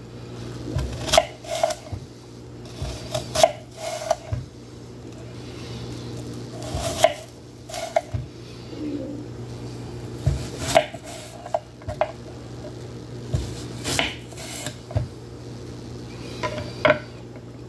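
Kitchen knife slicing apple pieces on a wooden cutting board: irregular sharp knocks of the blade hitting the board, often two in quick succession, with pauses between.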